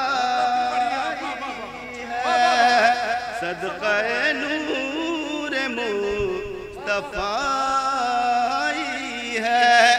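A man's voice singing a naat through a PA in long, drawn-out melodic lines that waver in pitch, with no clear words.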